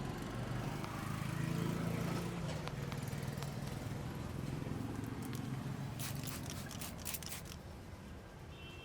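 Hands massaging a head, rubbing at the hair and scalp, with a flurry of quick crackling taps about six seconds in, over a steady low rumble of street traffic.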